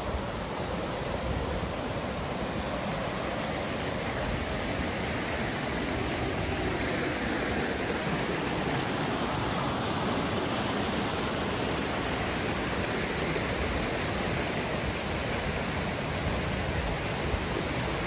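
High, muddy mountain river rushing over boulders and a small waterfall: a steady, churning rush of water.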